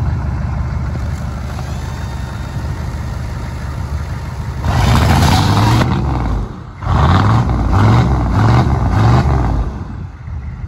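Chevrolet pickup's turbo diesel engine idling, then revved hard about four and a half seconds in, easing off briefly, then blipped in about four quick surges before settling back toward idle. Its exhaust is blowing into a pool float clamped over the tailpipe and inflating it.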